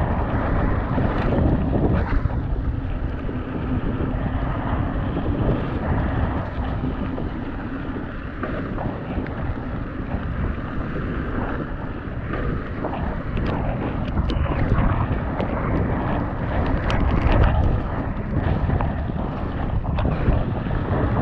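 Orbea Rallon mountain bike ridden fast down a wet trail: wind buffeting the helmet or chest camera's microphone over a steady rush of tyre noise, broken by frequent short knocks and rattles as the bike hits roots and rocks.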